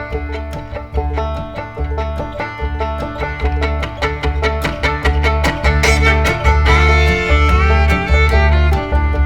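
Background music: an upbeat bluegrass-style tune with fiddle and banjo over a steady bass beat.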